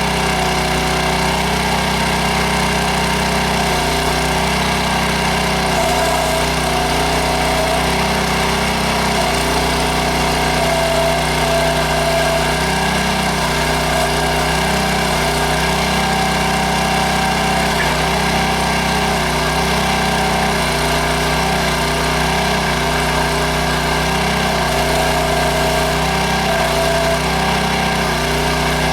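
Small gas engine of a towable backhoe running steadily, with a higher whine and lower tones that shift every couple of seconds as the machine works.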